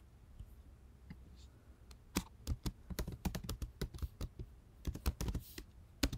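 Typing on a computer keyboard: a few faint clicks, then a quick, irregular run of keystrokes from about two seconds in.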